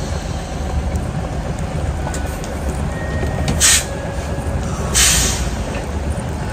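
Heavy truck's diesel engine running steadily while the tractor-trailer reverses, with two short air hisses from its air brakes about three and a half and five seconds in.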